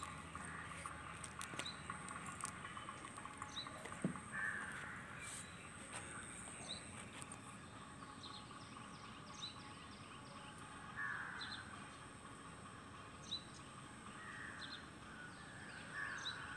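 Outdoor birdsong: four short, harsh, raspy caw-like calls spaced several seconds apart, with brief high chirps of smaller birds in between.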